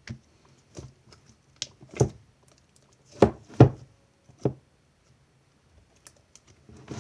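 Slime being stretched and worked by hand, giving a few scattered sharp pops and clicks, the loudest pair about three and a half seconds in.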